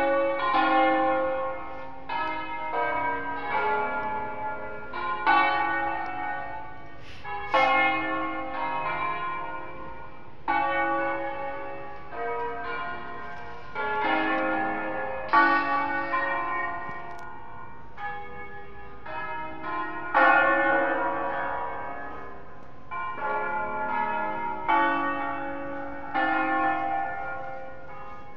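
The seven church bells of Cremona Cathedral, tuned in A-flat, ringing a solemn concerto peal. Overlapping strikes in shifting melodic patterns, each note ringing on, with the strongest strokes about halfway through.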